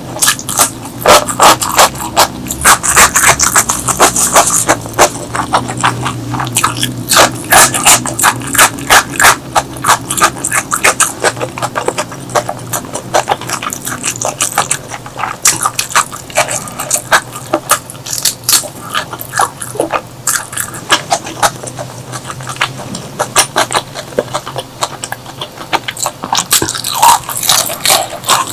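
Close-miked eating sounds: chewing and mouth smacking in a rapid, uneven run of wet clicks.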